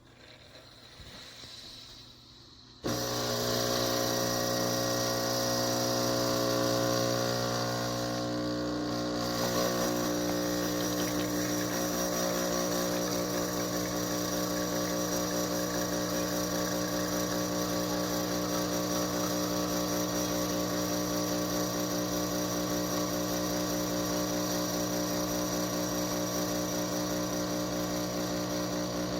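Breville Barista Touch Impress espresso machine's pump running steadily as it pulls an espresso shot. The hum starts about three seconds in and changes tone about ten seconds in.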